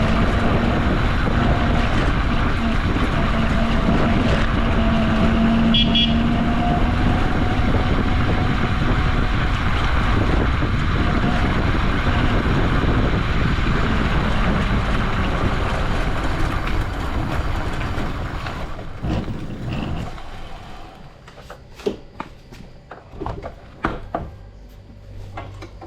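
Uwinfly DF5 electric bicycle in motion: a loud, steady rush of riding noise with a steady whine from the hub motor over the first several seconds. The rush dies away about three-quarters of the way through, leaving a few sharp clicks and knocks.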